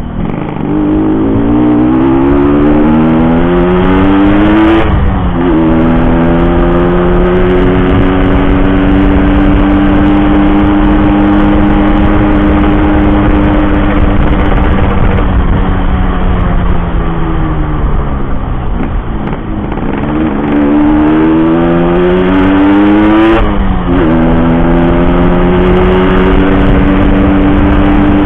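Yamaha RX-King's two-stroke single-cylinder engine under way: the revs climb for about five seconds, drop sharply at a gear change, then hold steady at cruising speed. Later the revs sag, climb again and drop at another gear change, settling back to a steady cruise.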